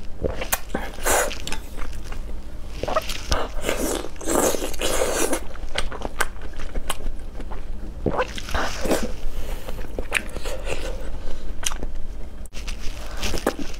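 Eating sounds from spicy instant noodles: several long slurps of noodles with chewing and wet mouth clicks in between.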